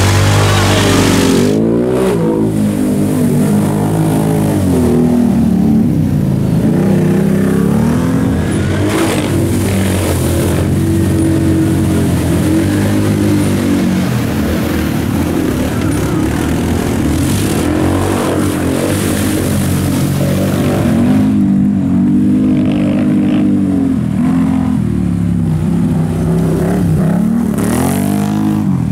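ATV engines revving up and down again and again, the pitch climbing and falling every couple of seconds, as the quads work through deep mud and a muddy water pit.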